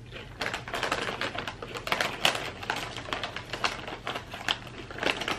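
Plastic chip bag crinkling as it is handled and opened, a dense run of crackles starting about half a second in.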